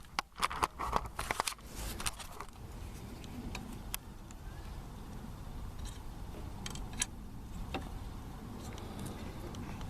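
A cluster of small clicks and light metallic taps as the door handle's thin steel linkage rod and its plastic clips are handled and fitted inside a truck door, then a few isolated clicks over a steady low rumble.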